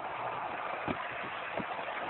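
Lionel electric toy train running on its track: a steady whir of motor and wheels with a few sharp clicks.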